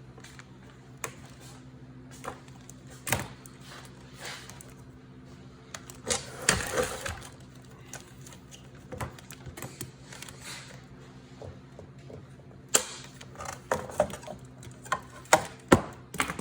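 Hand tools working on an oxygen concentrator's compressor: scattered sharp clicks and clatters as wire cutters nip the compressor wires and parts are handled, with a quick run of clicks near the end.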